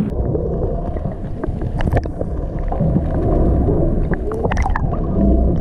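Water sloshing and gurgling around a landing net at the surface, heard muffled through an underwater camera, over a steady low rumble, with a few sharp splashes.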